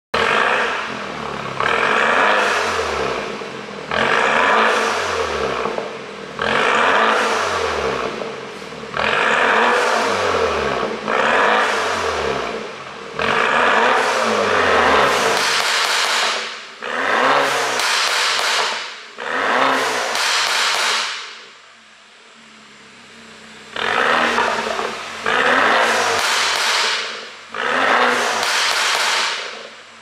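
BMW F30 320i's turbocharged four-cylinder engine revved in repeated short blips, about fifteen, heard at the exhaust. As the revs fall after each blip there is popping and crackling from a pop-and-bang exhaust tune. It drops back to a quieter idle for a couple of seconds about two-thirds of the way through, then the revving resumes.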